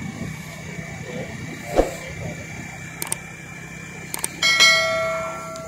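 Subscribe-button animation sound effects: two pairs of mouse clicks, one about three seconds in and one just after four, then a bell chime that rings out and fades over about a second. Under it runs steady street noise, with one sharp thump a little under two seconds in.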